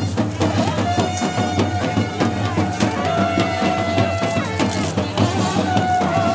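Festive band music: fast, busy drumming with long held notes from wind instruments over it.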